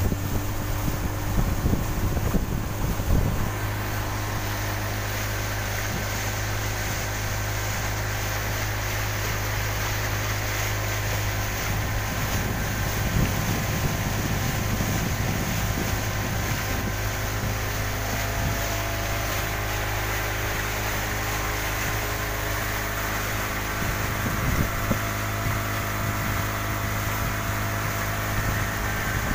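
Yamaha 40 hp outboard motor running steadily at cruising speed, pushing the speedboat along, with wind and water rushing past.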